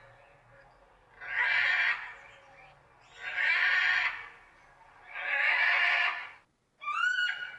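Blue-and-yellow macaw calling: three long, harsh squawks of about a second each, roughly two seconds apart, then near the end a shorter call with a rising whistled tone.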